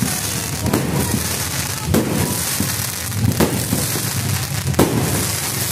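Fireworks going off: a steady crackling hiss of burning pyrotechnics, broken by sharp bangs every second or so as shells are launched.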